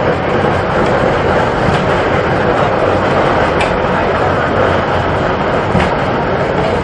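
A tall jet of hot mud and water blasting up out of the ground in an eruption, making a loud, steady rushing noise.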